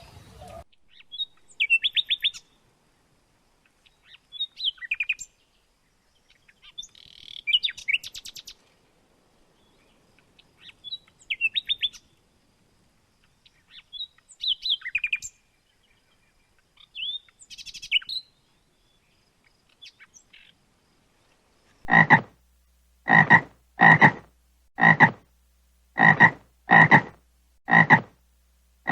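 High, rapidly pulsed chirping calls repeat every two to three seconds, then a frog croaks loudly seven times, about once a second, near the end.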